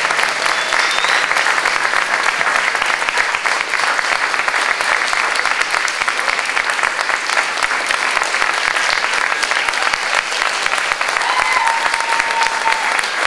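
Audience applauding, a dense, steady sound of many hands clapping.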